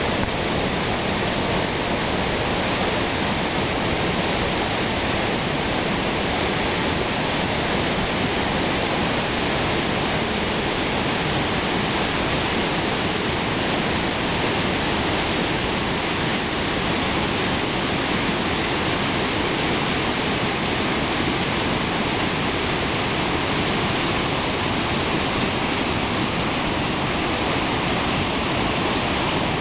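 River water rushing steadily through a swimming hole, the flow heavy after a day of hard rain.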